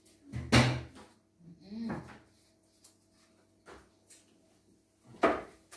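Two sharp thumps of a hand date stamp pressed down onto paper on a tabletop, about five seconds apart, with a few lighter knocks between.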